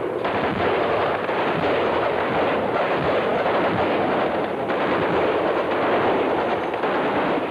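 Dense, sustained gunfire from many rifles, the shots running together into a steady din without a break.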